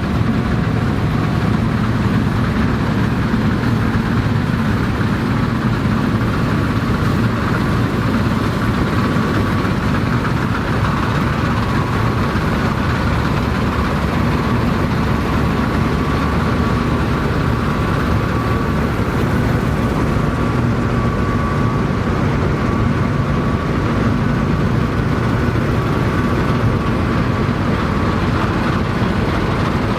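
Vintage Dronningborg D2600 combine harvester running steadily while harvesting barley, its engine and threshing machinery giving an even mechanical hum with no change in speed.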